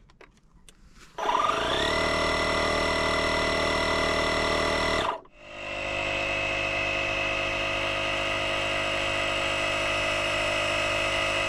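Portable mini air compressor's motor starting about a second in with a short rising whine, running steadily, then cutting off after about four seconds. It starts again moments later and runs steadily with a higher-pitched whine.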